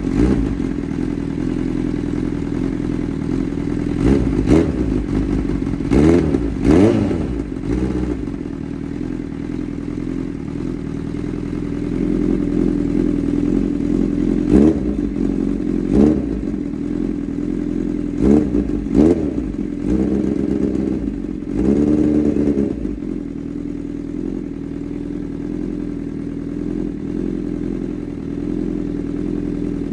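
Honda CB1000R's inline-four idling through a Black Widow aftermarket exhaust. The throttle is blipped repeatedly in quick, short revs, with a longer rev held for about a second near the end, before it settles back to idle.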